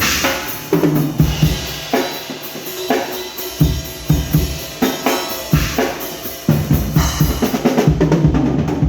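Pearl Roadshow five-piece acoustic drum kit played unprocessed: bass drum and snare in a steady beat under a continuous cymbal wash. The hits come thicker in the last couple of seconds.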